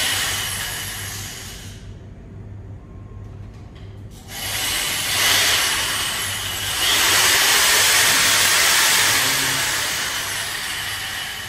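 Corded handheld power tool running in two bursts: a short one at the start, then a longer, louder run from about four seconds in that swells around seven seconds and tails off near the end.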